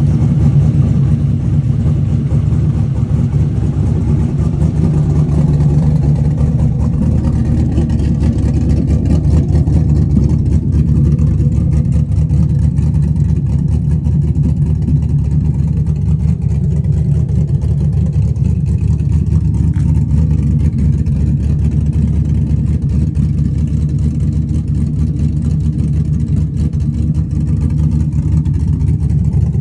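Chevrolet 6.2 L L86 V8 idling steadily through a Corsa Sport 3.5-inch cat-back exhaust, with a deep, even exhaust note.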